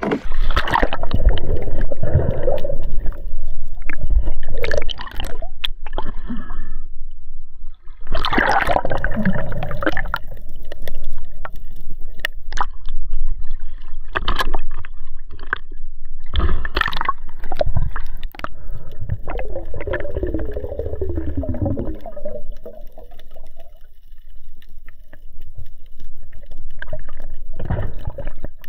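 Sea water splashing, sloshing and gurgling as a diver slips off a boat into the water, heard from a microphone that dips in and out at the surface. It comes in loud irregular surges: one at the entry, more several times later.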